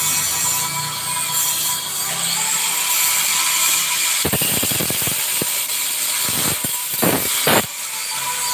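A run of sharp mechanical clicks and knocks, like a ratchet, starting about halfway through and ending with two louder knocks near the end, over a steady hiss.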